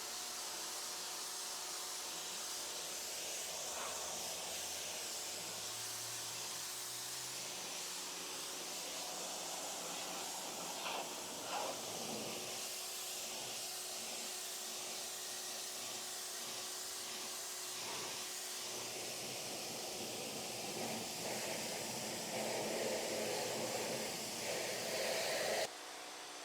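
Pressure washer spraying a jet of water onto a patio surface, a steady hiss with a couple of brief knocks about eleven and twelve seconds in. The spray grows louder near the end, then cuts off suddenly.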